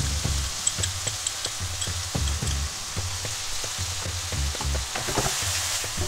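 Chicken and prawns frying in oil in a wok, a steady sizzle with small crackles as sweet soy sauce is poured in; about five seconds in a wooden spoon stirs and scrapes the pan and the sizzle swells. A light music track with a bouncy bass line plays underneath.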